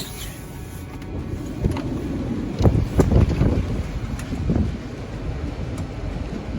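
Strong storm wind gusting and buffeting the microphone, a low rumbling rush that swells hardest about three seconds in.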